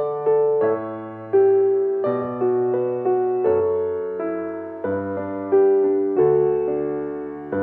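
Steinway grand piano played solo, a melody over a bass line. New notes and chords are struck at a slow, even pace, about every 0.7 seconds, and each rings and fades before the next.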